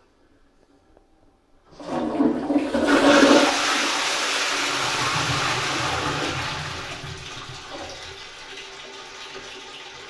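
A 1980s high-level Twyfords Classic cistern flushing into an Armitage Shanks Magnia pan. Water rushes in suddenly about a second and a half in and is loudest for the first couple of seconds. It holds a steady rush, then tapers to a quieter wash for the last few seconds. The flush is incredibly powerful and splashes.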